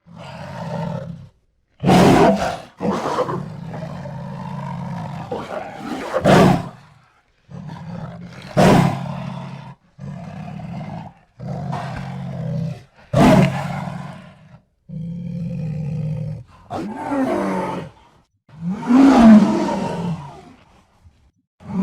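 Jaguar roaring and growling in a string of separate calls with short breaks between them: low, steady growls alternate with sudden loud roars, five of them standing out as the loudest.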